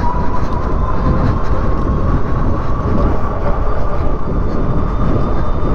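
Heavy wind rumble on the microphone while riding a Coswheel T20 e-bike at speed, with the faint whine of its electric motor rising slowly in pitch as the bike accelerates in its top assist mode.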